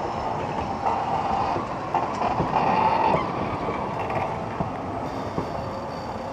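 Ffestiniog Railway narrow-gauge passenger carriages rolling past on the track, a steady running rumble with scattered wheel knocks over the rail joints.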